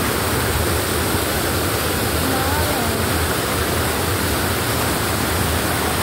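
A mountain waterfall pouring and splashing over large rocks, heard up close: a loud, steady rush of white water.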